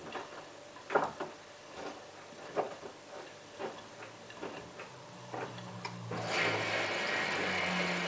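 Hotpoint Ultima WT960 washing machine in its rinse: the drum turns with wet laundry, giving irregular clicks and knocks. A low motor hum comes in after about five seconds, and about six seconds in a steady rush of water starts as the machine fills.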